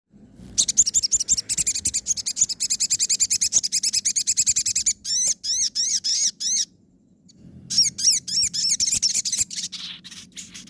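Crimson sunbird (sogon) singing in the fast 'nembak' style: a rapid run of high, sharp repeated notes for about four seconds. Slower chirps that rise and fall follow, then a pause of under a second, more chirps, and a fainter trill near the end.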